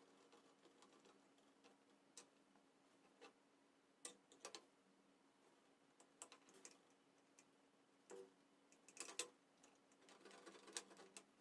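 Faint, irregular small clicks and taps, about a dozen spread unevenly, over a low steady hum.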